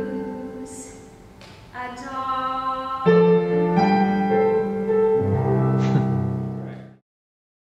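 A woman singing with piano accompaniment; the music cuts off suddenly near the end.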